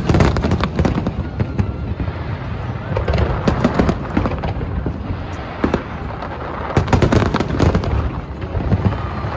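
Large aerial fireworks display: rapid volleys of shell bursts and crackles in three busy clusters a few seconds apart, over a continuous low rumble of booms.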